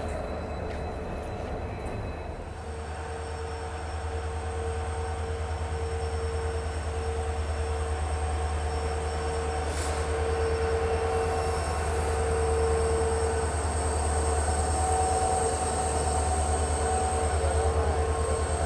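Diesel locomotive's engine running close by, a steady low hum with a held whine above it. In the first two seconds or so the sound is that of a passenger train pulling out.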